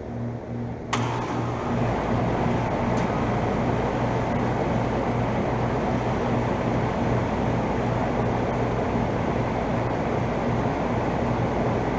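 2012 Bryant Legacy central air conditioner's outdoor condensing unit starting up for the season: over a low hum, it kicks on suddenly about a second in and then runs steadily with a rush of fan air. A short click sounds about three seconds in.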